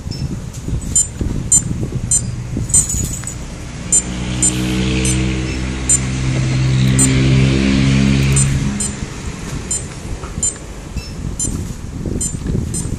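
Electronic calculator keys pressed one after another, each press giving a short high beep, about two a second. From about four seconds in, a motor vehicle engine passes, swelling to the loudest sound for several seconds and covering the beeps, then the key beeps come back near the end.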